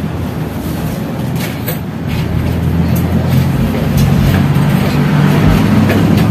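A motor vehicle's engine running steadily, a low rumble that grows louder after about two seconds, with a few faint clinks over it.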